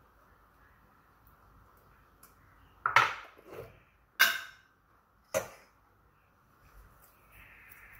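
Metal spoon knocking against a stainless steel mixing bowl: three sharp clinks about a second apart, the first two the loudest.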